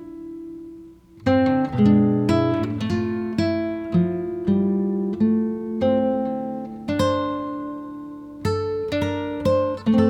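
Acoustic guitar music: a held chord dies away, and about a second in the playing resumes with plucked notes and strummed chords, each struck note ringing and fading.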